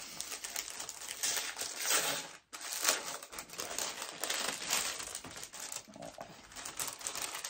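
Paper gift bag crinkling and rustling as it is opened by hand and a card is drawn out of it. The paper noise is loudest about two and three seconds in.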